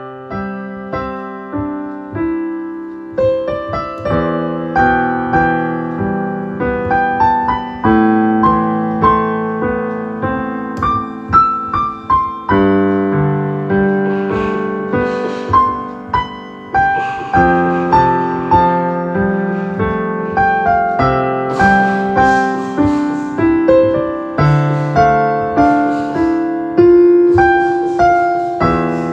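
Solo piano music: a melody over chords, each note struck and left to ring out.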